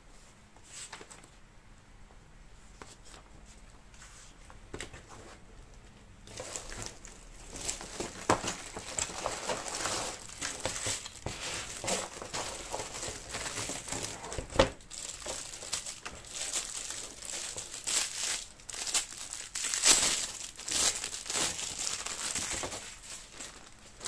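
Clear plastic film packaging being unwrapped and handled: a dense run of crinkles and sharp crackles that starts about six seconds in and dies down near the end.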